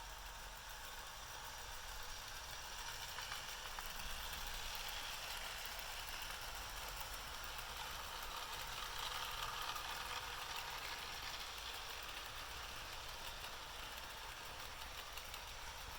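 Bachmann Spectrum GP-30 and GP-35 model diesel locomotives running on track, a steady motor and wheel-on-rail rattle. It grows louder twice, as if they are passing closer.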